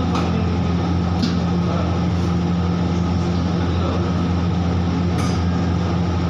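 Commercial wok stove burning at high flame: a steady roar with a low hum under it, and two brief clicks, about a second in and again near the end.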